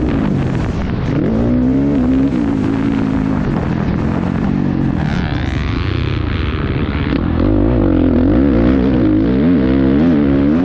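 Motocross bike engine under hard riding, its pitch rising and falling again and again as the throttle is worked and gears change, with the sound shifting for a couple of seconds near the middle.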